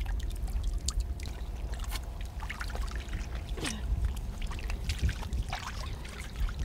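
Shallow tidal water trickling and sloshing, with many small splashes and wet clicks as hands work in it, over a steady low rumble.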